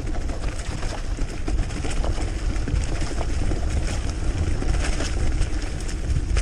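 Wind buffeting the microphone as a bicycle rolls along a trail, a loud steady rumble with a hiss over it and faint scattered rattles and clicks.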